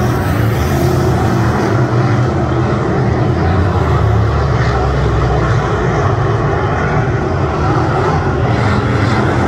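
Dirt-track race car engine running hard at high revs, a loud steady drone with no breaks.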